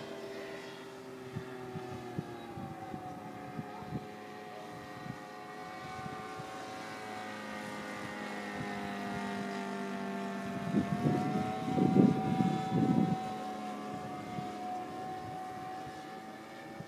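Sopwith biplane's engine and propeller running steadily overhead, the note drifting slowly in pitch as the plane moves across the sky. A few seconds of louder rough rumbling come about two-thirds of the way through.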